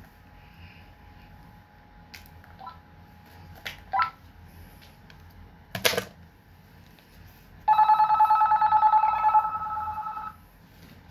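An electronic ringing tone with a fast flutter, lasting about two and a half seconds in the second half and the loudest sound here. Before it come a few light clicks and one sharp knock.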